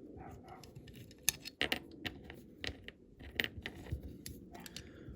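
Irregular light clicks and taps of a small door hinge being pushed and fiddled into a die-cast toy van body, with a few sharper clicks about a second and a half in and again near the middle.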